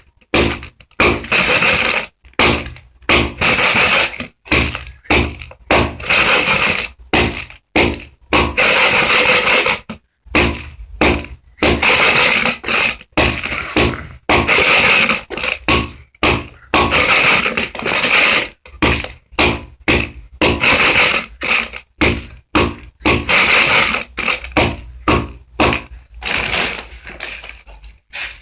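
Layer pellets and oyster shell being pounded and crushed into powder in a box: loud, irregular crunching strikes, roughly one or two a second, some drawn out into longer grinding crunches.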